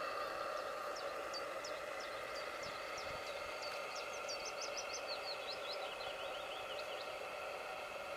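Model steam launch running with a steady pitched hum that fades a little as it moves off. A small bird twitters in a run of quick high chirps from about half a second in until about seven seconds.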